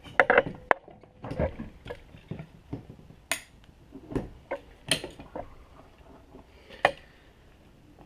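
Irregular light clicks and knocks of hands handling tools and parts, about a dozen in all, with the sharpest clicks a little past three seconds and near five seconds in.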